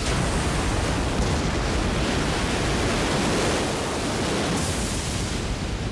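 Animated sound effect of a huge tidal wave: a loud, steady rushing noise of water.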